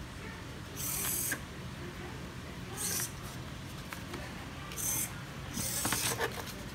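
Hobby servo motors on a small Arduino robot whirring in four short bursts about two seconds apart as they swing its legs; the last burst is longer and rougher.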